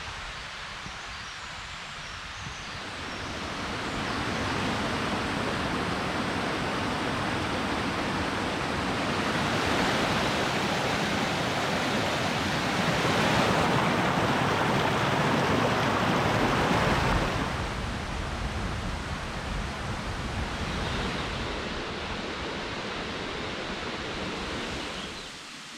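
Steady rain falling as an even hiss. It grows heavier a few seconds in, is loudest past the middle, then eases off.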